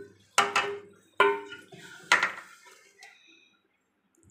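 A metal spoon knocking against a metal cooking pot four times, each with a short ring, as chicken masala is scooped out and laid over the rice for biryani.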